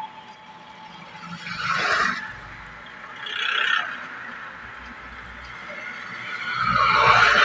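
Street traffic passing close by: motorbikes, e-rickshaws and cars going past in swells, about two seconds in and again a little later. The loudest pass comes near the end, with a deep engine rumble as a heavy vehicle approaches.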